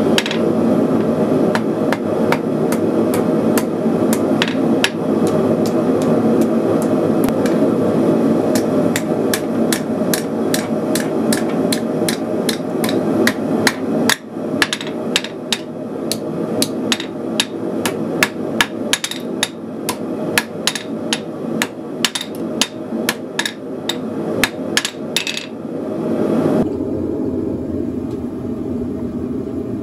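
Hammer striking red-hot rebar on a Hay Budden anvil in a long run of quick blows, about two to three a second, which stop a few seconds before the end. Under it the gas forge burner keeps up a steady roar.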